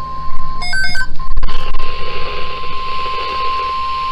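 NOAA weather radio alarm tone, a steady high-pitched electronic tone, sounding ahead of a severe thunderstorm watch broadcast. About half a second in, a quick run of short beeps interrupts it, followed by a click. The tone then carries on over radio static hiss.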